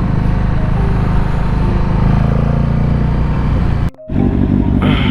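Yamaha Stratoliner's large V-twin engine running as the motorcycle rides along, its note shifting slightly about two seconds in. The sound cuts out briefly near four seconds at an edit, and the engine comes back with a different, steady note.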